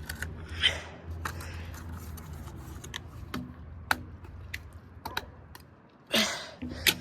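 Scattered plastic clicks, knocks and short scrapes from prying apart a cheap speaker cabinet to free its driver, with a louder scrape just past six seconds.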